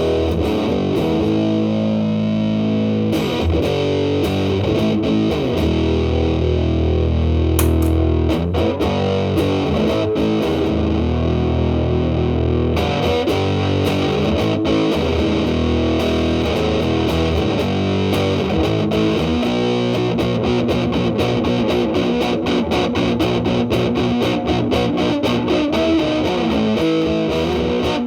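Electric guitar through a Big Muff Pi fuzz pedal, thick sustaining distortion. It opens with long held chords and notes that ring out, then turns to busier, faster picked lines about halfway through.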